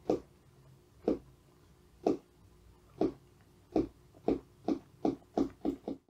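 Pencil tapping on the cover of a hardcover notebook, about eleven knocks in all: four roughly a second apart, then quickening to about three a second near the end.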